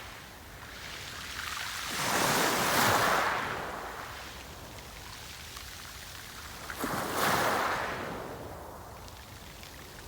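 Sea waves breaking on the shore: two waves surge in, about two seconds in and again near seven seconds, each swelling to a wash and then slowly draining away.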